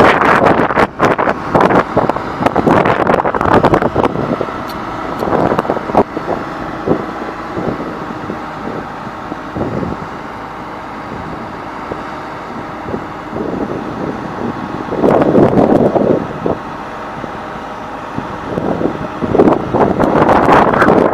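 Shuttlelift 5540 carry deck crane's engine running steadily while the hydraulic boom is raised and retracted. Wind buffets the microphone in loud gusts during the first few seconds, briefly about three-quarters of the way through, and again near the end.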